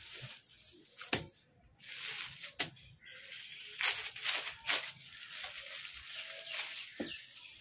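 A clear plastic packet crinkling as hands handle it, in repeated rustling bursts with a few sharp crackles.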